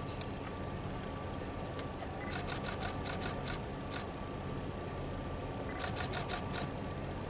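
Camera shutter firing in two quick bursts of rapid clicks, each about a second long, with a lone click between them. A steady low rumble runs underneath.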